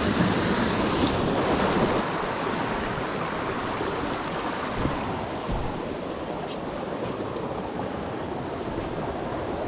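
Small creek's water rushing steadily, a continuous even rush that is a little louder for the first two seconds.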